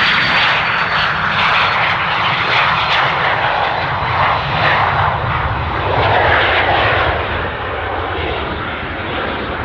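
Jet aircraft passing the airfield: a loud, steady engine roar with a high whine slowly falling in pitch.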